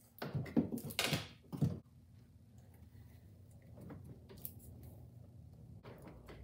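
Wiper motor and linkage assembly knocking and thudding against the cowl as it is fitted back into place, a quick cluster of knocks in the first two seconds followed by a few light clicks of handling.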